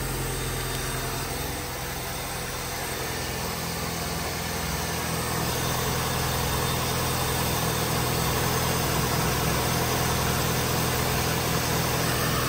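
Acura Integra's B20 VTEC four-cylinder engine idling steadily, getting a little louder about five seconds in. The engine was just started after an oil pressure gauge install and is warming up toward operating temperature.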